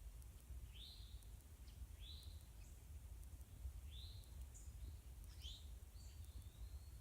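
A bird calling faintly: short arched chirps, about one every second or two, some with a brief higher note, over a low steady rumble.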